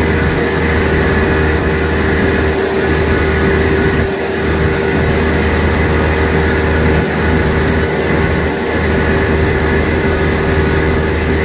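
Tow boat's engine running steadily at speed, a constant drone, with the rush of its churning wake behind the stern.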